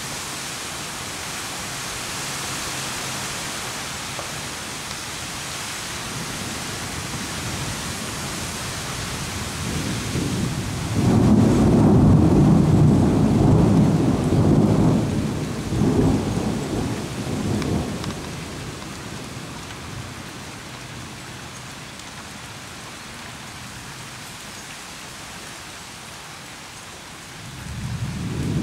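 Thunderstorm: steady rain hiss, with a long rolling thunder rumble that builds about ten seconds in, stays loud for several seconds, then dies away. Another rumble of thunder starts near the end.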